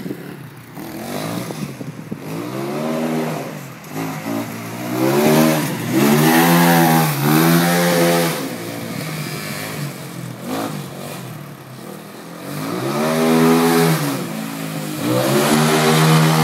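Crossfire Mustang Evo 2's 250cc water-cooled four-stroke engine, fitted with a Mikuni 30 mm carburettor, revved hard in repeated surges as the quad is drifted. The revs climb and drop again several times, with a longer high-rev pull in the middle and another at the end.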